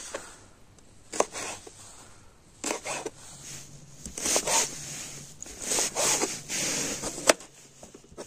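Several short bursts of rustling and scraping, with a sharp click about a second in and another near the end.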